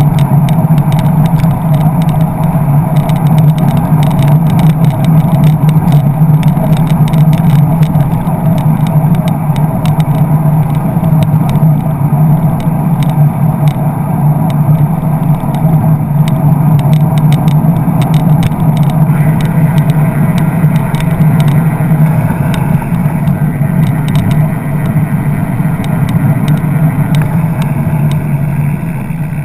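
Steady rumble of road and wind noise picked up by a camera mounted on a moving bicycle's handlebars, with frequent small clicks and rattles, as the bike rides alongside slow-moving car traffic.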